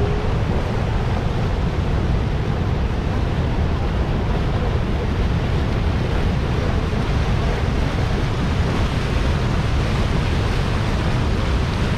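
Steady rushing of Niagara Falls, water pouring over the brink of the falls close by.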